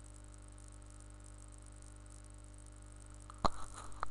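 Steady low electrical hum, then one sharp click about three and a half seconds in, followed by faint softer sounds and a smaller click just before the end.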